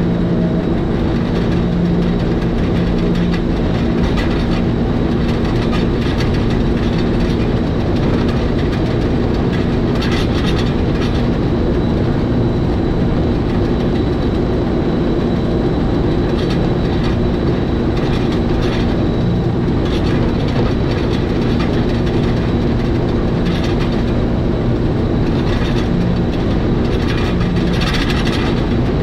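Electric rack-railway train of the 800 mm gauge Schynige Platte Railway running steadily downhill: a constant mechanical hum and whine from the motors and rack gearing, with clusters of clicking and clatter from the wheels and track now and then.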